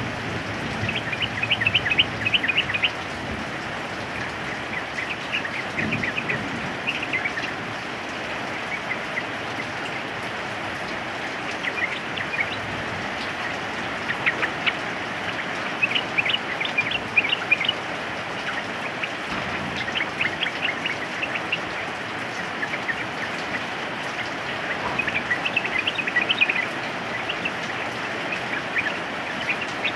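Yellow-vented bulbul singing in short bouts of quick chirpy phrases, several times, over the steady hiss of rain.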